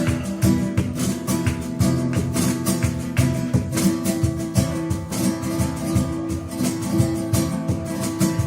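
Acoustic guitar strummed in a fast, flamenco-style rhythm with cajón, an instrumental passage of a live song played without singing.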